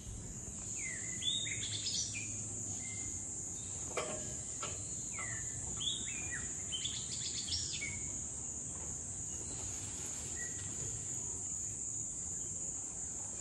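Steady high-pitched insect drone, with several birds giving short, quick sliding chirps over the first eight seconds or so.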